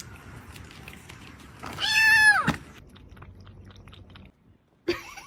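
A cat meowing once, a single loud meow about two seconds in that holds its pitch and then drops away at the end.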